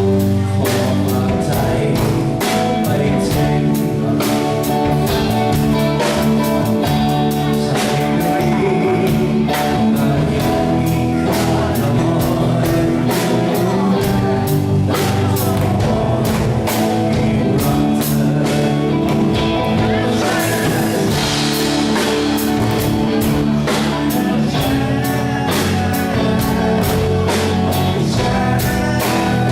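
A live band playing a song on drum kit, guitar and bass, with a singer.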